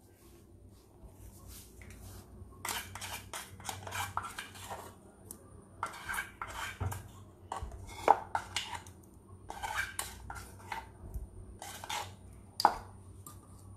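A spoon clinking and scraping against cookware in short bursts of clatter as a tempering with curry leaves is spooned over dal, with one sharper clink near the end.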